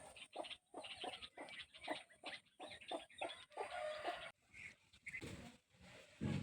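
An animal's quick run of short, repeated calls, about three a second, stopping about four seconds in. A low thud comes near the end.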